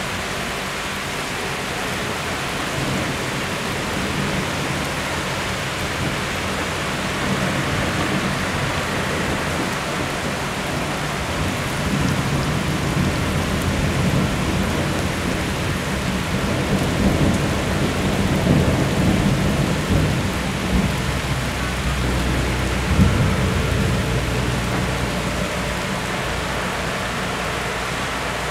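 Heavy downpour hissing steadily, with thunder rolling in from a few seconds in, growing through the middle and peaking in a sharper clap about twenty-three seconds in.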